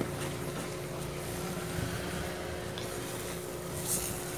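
Thick strawberry condensed-milk sweet being stirred in a pan on a gas burner: soft scraping of the spatula and bubbling of the cooking mixture over a steady low hum, with a short hiss near the end.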